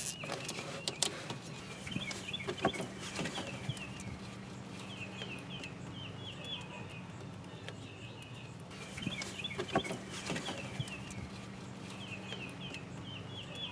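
Birds calling in short runs of quick chirps, a run every three or four seconds, over a low steady hum, with a few scattered clicks.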